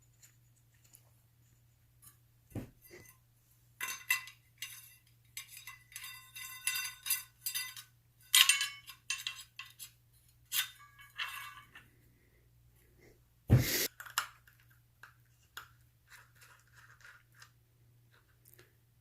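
Bimetal hole saws and their mandrel being handled, clinking and rattling against each other with ringing metallic chinks, and one louder knock about two-thirds of the way through.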